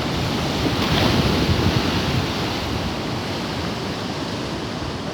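Sea surf washing onto the shore, rising to a rush about a second in and then slowly easing, with wind rumbling on the microphone.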